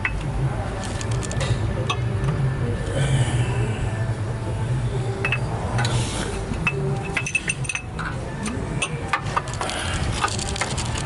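Scattered metallic clinks and taps of hand tools on a bolt, more of them near the end, over a steady low hum.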